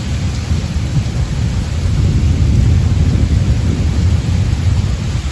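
Rolling thunder during a rainstorm: a long, continuous low rumble that swells in the middle, over the steady hiss of falling rain.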